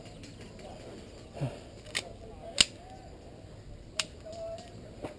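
Five sharp snaps at uneven intervals, the one near the middle loudest.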